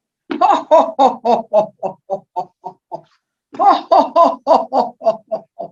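A person laughing in a laughter-yoga exercise: two bouts of rhythmic laughs, about four a second, each starting loud and fading out, the second beginning about three and a half seconds in.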